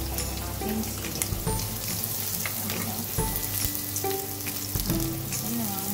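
Chopped garlic, onion and chili sizzling in rendered pork fat in a ceramic-coated frying pan, with constant fine crackling pops, as a spatula stirs them.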